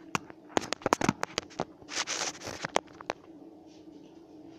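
A phone being handled and set in place for recording: a quick run of knocks, clicks and rubbing against the microphone over the first three seconds, then only a faint steady low hum.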